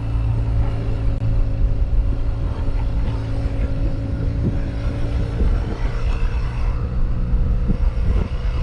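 Adventure motorcycle's engine running steadily at cruising speed, heard from the bike-mounted camera with a heavy low wind rumble.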